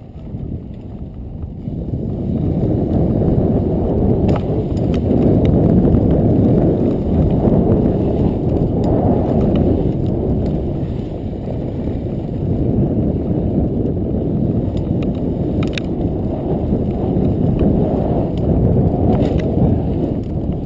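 Mountain bike rolling fast down a gravel and dirt trail: a steady rumble of tyres on loose ground and air rushing past, building up over the first few seconds as it gathers speed, with a few sharp clicks of stones and bike rattle.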